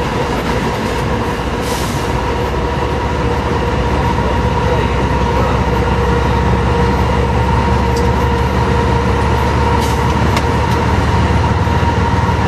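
Steady cab noise of a moving diesel-electric freight locomotive: a low, even engine and rail rumble, with a steady whine running through it. A few faint clicks come in the second half.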